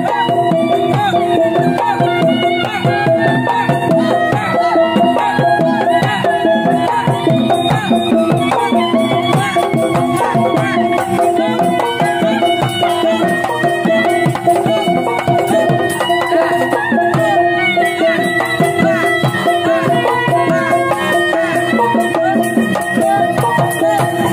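Ondel-ondel street music: a dangdut koplo song played loud and continuously, with a melody over fast hand-drum (kendang) strokes and clashing hand cymbals.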